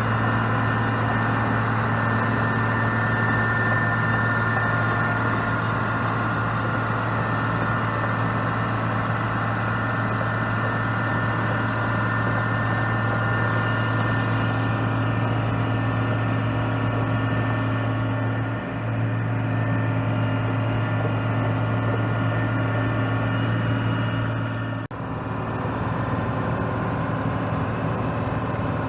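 Diesel engine of a 2004 ABG Titan 226 crawler asphalt paver running steadily with a low, even hum. It briefly dips about two-thirds of the way through and breaks off abruptly for a moment near the end.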